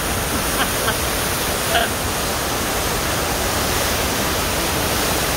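South Esk River in flood, its muddy water churning through rocky rapids in a steady, loud rush of white water.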